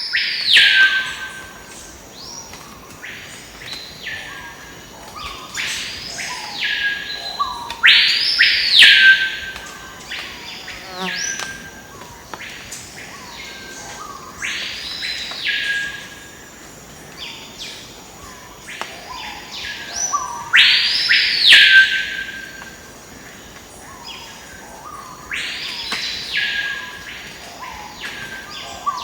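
A bird giving loud whistled calls that swoop up and back down, repeated about every two seconds with fainter answering calls, over a steady high insect drone.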